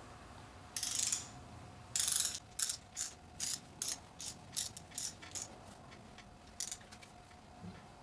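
Torque wrench's ratchet head clicking as it is worked back and forth on a lower intake manifold bolt of a supercharged GM 3800 engine while the bolt is torqued down. Two longer rattling runs of clicks come about one and two seconds in, then single clicks about two or three a second, with one last click near the end.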